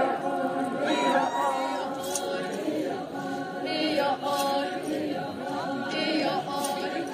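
A large group of voices singing together unaccompanied, a traditional group song sung by a line of dancers.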